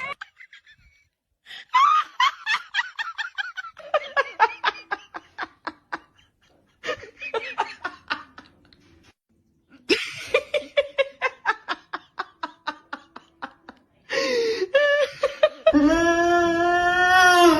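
Bouts of hearty laughter in rapid pulses, three runs broken by short pauses. Near the end a long, loud, wavering pitched sound sets in.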